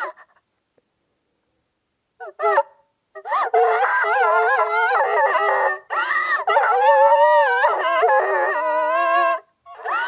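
A cartoon girl character crying: a short sob, then long high wavering wails. The voice is altered by editing effects, and near the end it takes on a fast warble.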